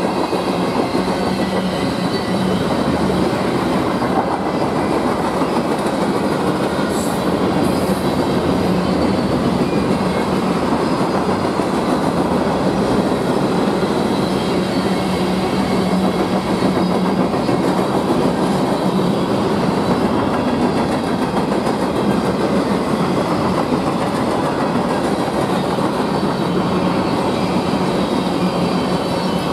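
A freight train's tank cars and covered hoppers rolling past close by: a steady loud rumble of steel wheels on rail with a rhythmic clickety-clack as the trucks cross the rail joints.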